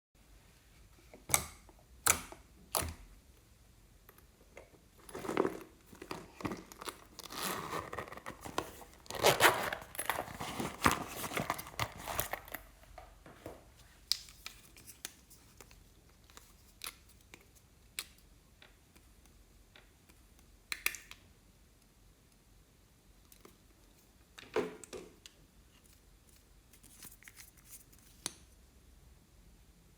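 Close handling noise with crinkling and tearing: three sharp clicks at first, then a stretch of steady crinkling and tearing from about five to thirteen seconds in, then scattered clicks and a short rustle later.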